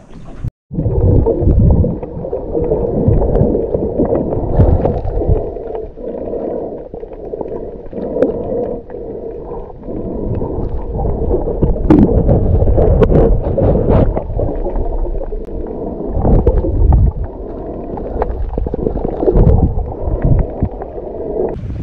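Muffled underwater sound of gurgling water, with repeated low surges of moving water and scattered small clicks; everything above the low tones is cut away, as heard from a camera under the surface.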